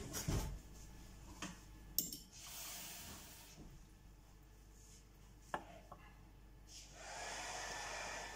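Faint kitchen handling sounds: light knocks and clicks, and a brief run of tap water into a small cup about two seconds in. A steady hiss begins near the end.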